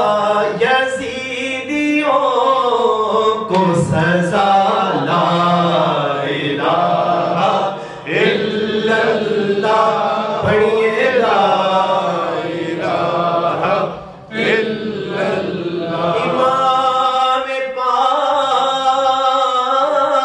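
A man chanting a devotional recitation through a microphone, in long, bending, held sung phrases, with two short breaks for breath about 8 and 14 seconds in.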